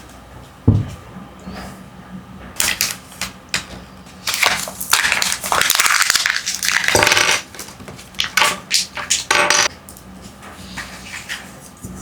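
Small plastic toy pieces and packaging being handled: a thump, scattered sharp clicks and knocks, and a louder stretch of crinkling or rustling in the middle.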